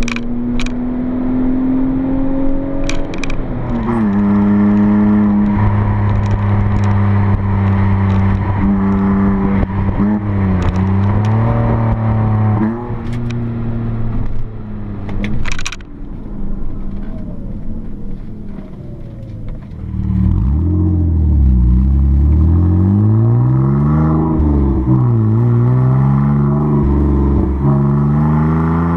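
BMW E46 325ti's 2.5-litre straight-six running through a muffler-delete exhaust, with the rear silencer replaced by a straight stainless tube. The engine is held steady at first, then revved up and down repeatedly through the second half, its pitch rising and falling, with a few sharp clicks along the way.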